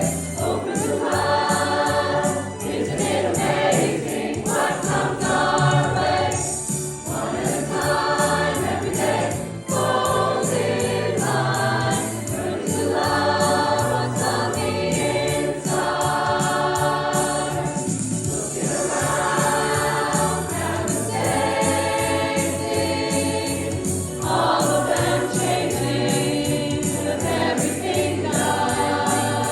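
A choir singing a song in sustained notes over a steady, fast percussive beat.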